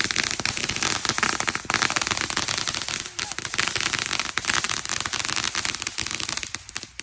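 Consumer fireworks going off in a dense, rapid string of crackling pops, which stops abruptly near the end.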